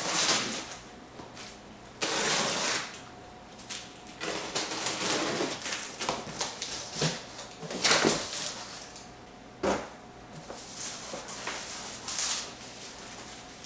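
Cardboard shipping carton being opened by hand: irregular bursts of rustling and scraping from flaps and packing material, with a sharp knock about ten seconds in.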